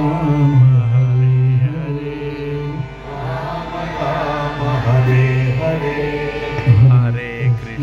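A male voice chanting a Hindu devotional bhajan in long, held notes that slide between pitches, over a steady drone.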